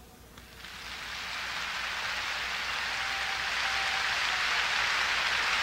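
Congregation applauding: the clapping swells in about half a second in, then holds steady.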